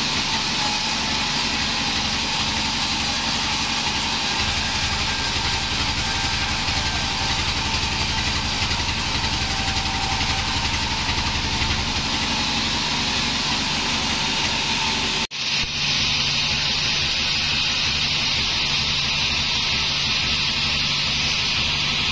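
Band sawmill running steadily, its blade cutting along a timber plank, with a constant low rumble under a high hiss. About fifteen seconds in the sound breaks off for an instant and carries on.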